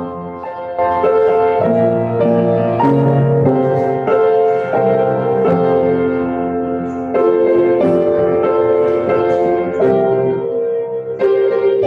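Upright piano being played: a postlude of sustained chords that change about once a second.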